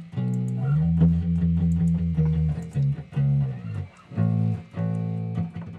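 Guitar music with bass: held chords in short phrases broken by brief pauses.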